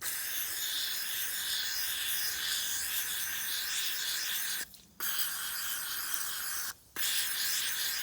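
Aerosol can of lube spray hissing in three squirts, a long one of about four and a half seconds, then two shorter ones, as it fills an air compressor cylinder to check it for leakage.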